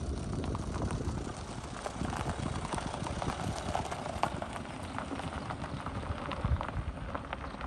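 Hyundai SUV's tyres crunching over a gravel road as it drives past and away, with loose stones crackling and popping under the wheels.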